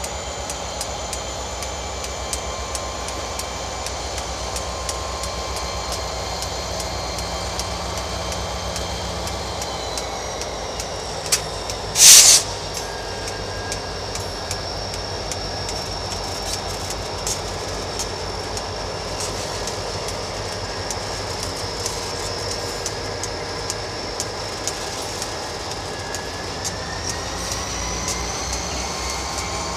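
Canadian Pacific freight train's diesel locomotives passing slowly: a steady engine drone and high whine, with wheels clicking over the rail joints. The whine drops in pitch about ten seconds in and rises again near the end. A short, loud hiss comes about twelve seconds in.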